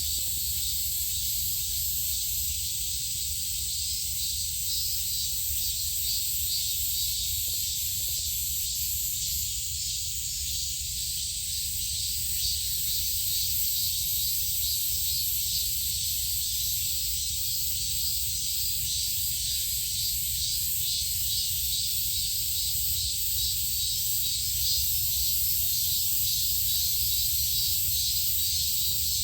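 Steady high-pitched chorus of insects with a fast pulsing in it, over a low steady rumble.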